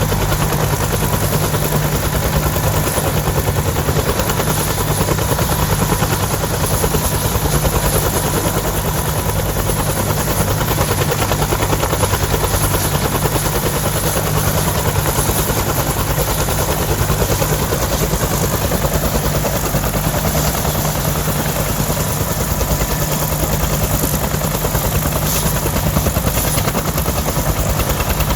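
Bell UH-1D Huey helicopter running steadily: the rapid, even beating of its two-bladed main rotor over the steady whine of its Lycoming T53 turboshaft.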